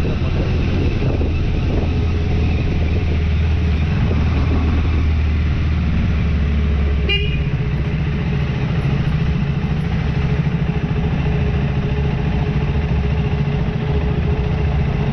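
Motorcycle engine running steadily, a strong low rumble, with a brief high-pitched toot about seven seconds in.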